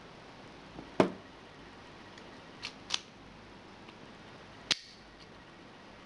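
Sharp metallic clicks and taps of a brass padlock, its key and lock picks being handled as a tension wrench and pick go into the keyway. The loudest click comes about a second in, two close together near the middle, and one later that rings briefly.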